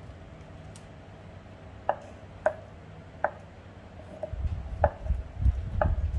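Large kitchen knife cutting through soft tofu and knocking on a wooden chopping board: five sharp knocks, spaced unevenly through the second half, with dull low thumps from the board and hands near the end.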